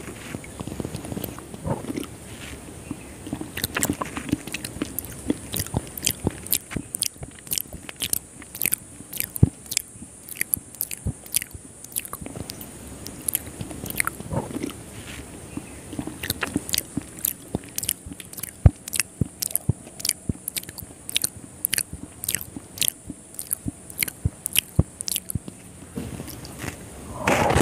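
Close-miked chewing of soft, syrupy Indian sweets: wet smacking and many sharp mouth clicks, coming in quick runs, with a few fuller mouthfuls in between.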